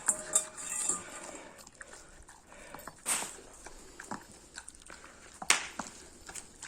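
A Dalmatian eating rice: irregular wet chewing and smacking, with two louder sharp sounds about three and five and a half seconds in.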